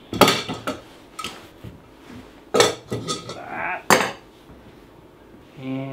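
Metal parts clanking and clattering as they are handled and set down on a wooden workbench: a handful of sharp knocks, some ringing briefly.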